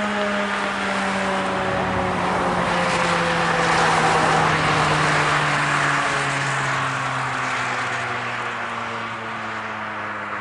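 Federal Signal 2001-SRN outdoor warning siren winding down at the end of its three-minute Alert signal, its tone sliding slowly lower. A car passes in the middle, its noise swelling over the siren for a few seconds and then fading.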